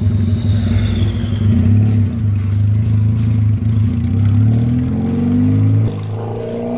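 Benelli Patagonian Eagle 250's two-cylinder engine breathing through a free-flow exhaust, running steadily just after being started. About four and a half seconds in it revs up with rising pitch as the bike pulls away, dips briefly near six seconds, then rises again.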